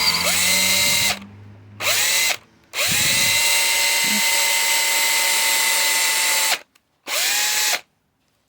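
DeWalt XRP 18 V cordless drill's brushed DC motor run in trigger bursts, test-running after its brushes were filed flat and reseated. Its whine climbs in pitch at each spin-up and winds down at each release. One run stops about a second in, then there is a short burst, a long run of about four seconds, and a last short burst.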